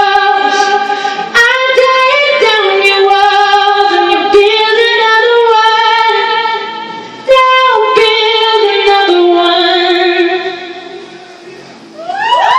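Live female vocals with backing music, the singer holding long wordless notes with vibrato; the music fades out from about ten seconds in. Crowd cheering and whoops start just before the end.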